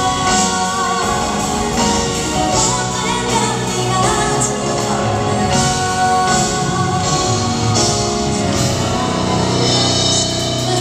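A female singer singing live into a handheld microphone with instrumental accompaniment, heard over an arena sound system from the audience seats.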